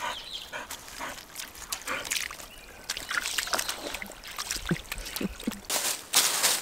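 A small woodland stream trickling over leaves and stones, with irregular crackling of dry leaves and twigs as a dog moves about close by; a louder rustle comes near the end.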